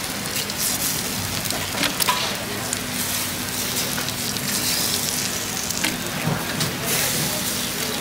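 Food frying on a hot pan, a steady sizzle with crackles and spits, over a low steady hum.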